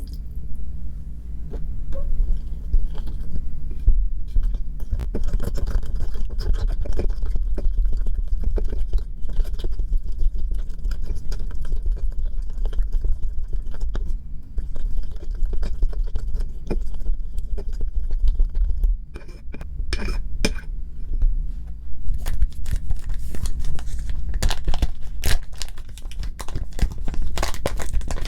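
Continual scraping and stirring of a thick toothpaste mixture in a container, with many small scratching strokes.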